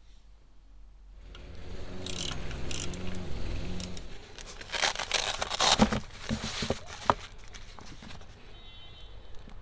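Handling of a ratcheting wrench set and its packaging: rustling and crinkling, with a cluster of sharp clicks about five to seven seconds in.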